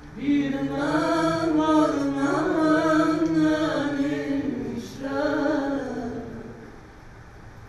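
Chant-like singing holding long, slowly bending notes: one long phrase, then a shorter one about five seconds in that fades away.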